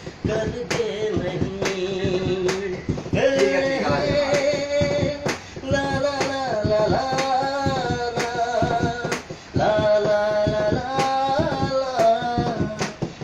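Music from a Hindi film song: a melody of held, gliding notes over a steady beat of about one stroke a second.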